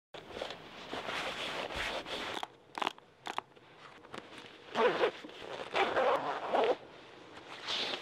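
A jacket zipper being pulled in rasping strokes, the loudest two about five and six seconds in, among rustling of clothing and snowboard gear and a few sharp clicks around the third second.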